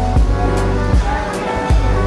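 Background music with a steady beat: deep held bass notes, a kick drum about every 0.7 seconds and light cymbal ticks.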